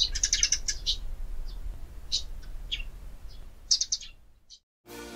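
Small birds chirping in quick clusters of short, high calls over a low outdoor rumble. The chirping cuts off near the end, and music starts.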